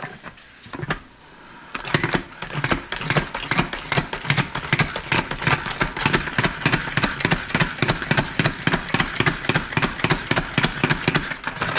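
Pump-action salad spinner being pumped fast, a rhythmic clatter of about four strokes a second over the whir of the spinning basket, starting about two seconds in. It is spinning the water off freshly blanched and rinsed broccoli.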